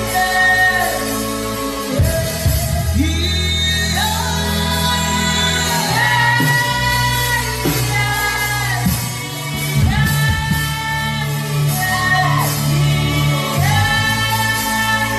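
A man's voice humming and vocalising a wordless worship melody in long held notes that slide at their ends, over sustained low accompaniment chords that change about every four seconds.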